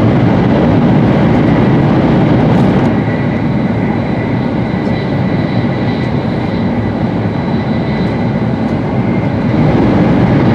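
Running noise of a 700 series Shinkansen heard inside the passenger cabin: a loud, steady low rumble and rush with a faint steady high-pitched whine over it.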